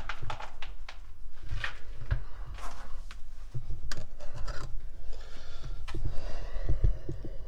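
Scraping, rubbing and irregular light knocks of a person's clothes and body against rough concrete while squeezing through a narrow opening in a confined space.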